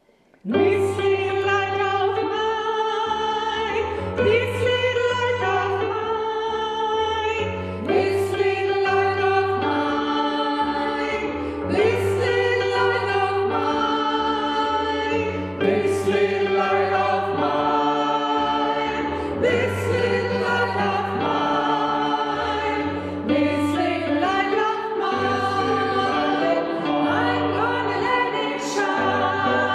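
Choir singing, starting about half a second in, with steady low accompanying notes beneath the voices.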